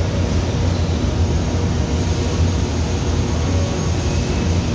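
Steady low hum and hiss of a Doosan CNC vertical mill running, its spindle head feeding slowly down in Z toward the toolsetter with the spindle not yet turning.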